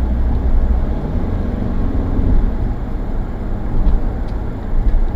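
Steady road and engine noise heard inside a car driving at highway speed, a low rumble throughout, with the engine note rising briefly about a second and a half in.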